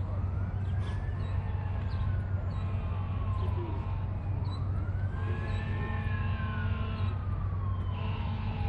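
Emergency vehicle siren in a slow wail, rising and falling twice and starting to rise again near the end, over a steady low rumble.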